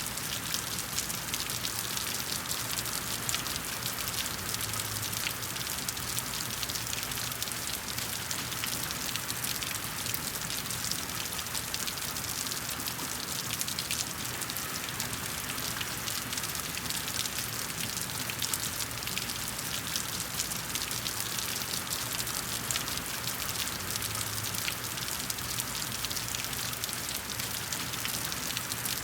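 Steady rain falling, a dense even hiss of many drops with fine patter.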